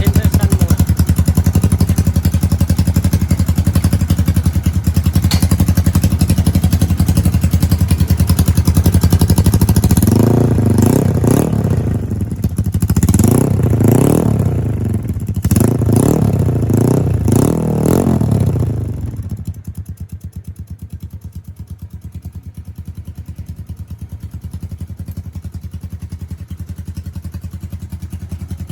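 Yamaha Mio scooter's single-cylinder four-stroke engine breathing through a GP-type racing exhaust, running steadily and fast, then revved in about six quick blips that each rise and fall. About nineteen seconds in it drops back to a quieter idle.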